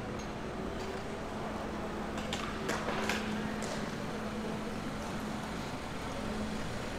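Quiet street ambience with a steady low hum as a car rolls slowly past at low speed, and a few light clicks or taps about two to four seconds in.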